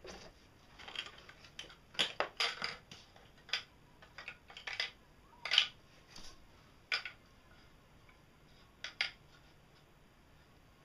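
Hard PVC plastic parts of a homemade roller bearing being worked and handled: irregular short scrapes and sharp clicks, busiest in the first half, then two sharp clicks a little before the end.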